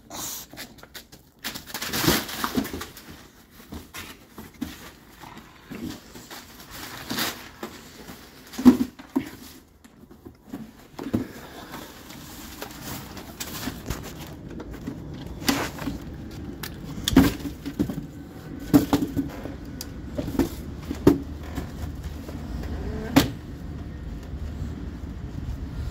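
A bulldog shoving and biting at a cardboard box on the floor: irregular scrapes, crunches and bumps of cardboard. A steady low rumble runs under it in the second half.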